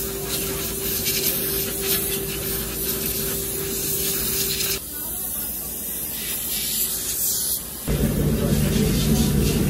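Steady hiss of compressed air sprayed from a hand-held wand over aluminium ceiling fan canopies on a conveyor, with a steady hum underneath. About eight seconds in, a louder low steady machine drone starts as the line moves on to the powder-coating booth.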